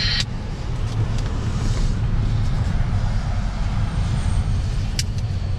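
Strong headwind buffeting the microphone, a steady low rumble while cycling into the wind, with a couple of brief ticks near the end.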